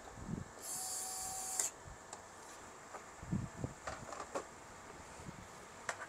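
A small electric screwdriver running for about a second as it drives a screw into the touchscreen's housing, a steady whir. Then a few knocks and clicks of the plastic unit being handled.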